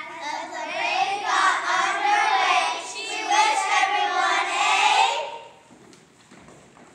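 A group of children singing together on stage, their many voices blending; the singing stops about five seconds in, leaving a low murmur.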